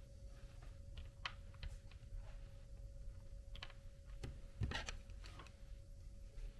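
Small scattered clicks and taps from handling the plastic wheel rim and mini beadlock ring parts while lining them up, with a quick cluster of clicks about four and a half seconds in as the loudest. A faint steady hum runs underneath.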